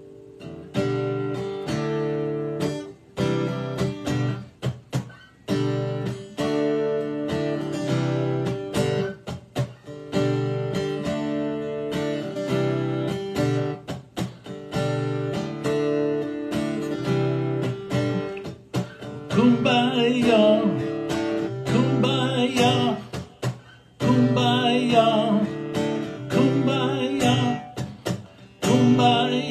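Acoustic guitar strummed in a steady rhythm, moving through chords. About twenty seconds in, a man's voice joins in, carrying a wavering melody over the strumming.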